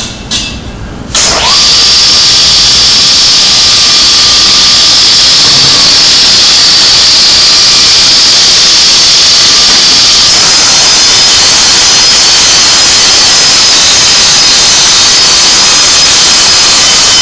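GMC KGS660S vertical panel saw's motor switching on about a second in, with a brief falling whine, then the saw running loud and steady as the saw head travels along a panel, cutting it.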